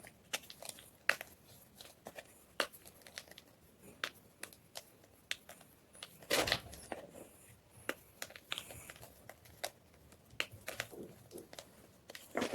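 White gym chalk crunching and crumbling: scattered sharp crackles, a few a second, with a louder burst of crunching about six seconds in.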